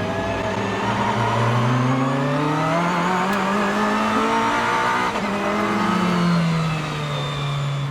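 Off-road 4x4's engine revving under load: the revs climb steadily for about five seconds, then drop back and hold steady.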